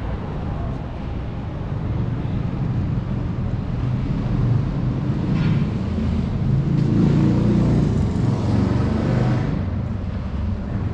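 Outdoor city street ambience: a low traffic rumble that grows louder in the middle and eases off near the end.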